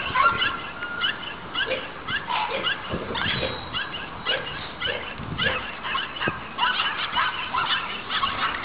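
Several young Cane Corso dogs yipping and whining, many short high-pitched calls overlapping several times a second.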